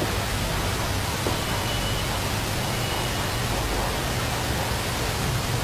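Steady hiss with a low hum from a running cryolipolysis slimming machine, its fans and vacuum pump working during a treatment demonstration. A faint thin high tone sounds in the first half.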